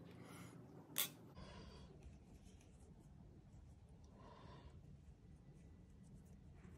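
Faint rubbing swishes of a needle and 1.5 mm warp cord being drawn through thick rope, with one sharp click about a second in.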